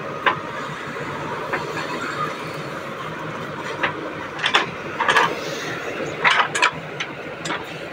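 JCB 3DX backhoe loader's diesel engine running steadily while the backhoe digs and loads soil. Over the engine come a series of short sharp knocks and clatters from the working arm and bucket, more frequent and louder in the second half.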